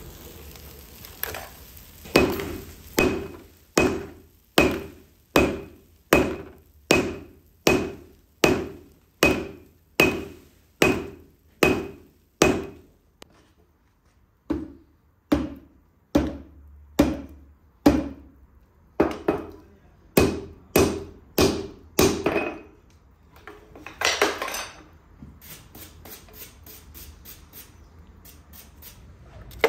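Hand hammer striking a white-hot billet of nails on a steel anvil, forge-welding it: steady blows a little over one a second, each with a short ring, with one pause in the middle. Near the end comes a short scraping rush, then a run of lighter, quicker taps.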